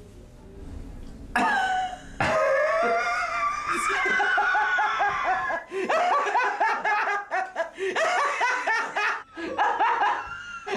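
Two men laughing hard. The laughter breaks out suddenly about a second and a half in and goes on in rapid ha-ha-ha pulses.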